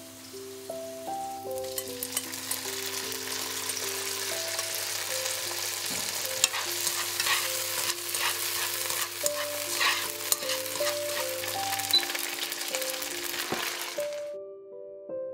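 Beef strips and bell peppers sizzling in hot oil in a wok as they are stir-fried, with frequent sharp clicks of the spatula against the pan. The sizzling swells about a second and a half in and cuts off suddenly near the end.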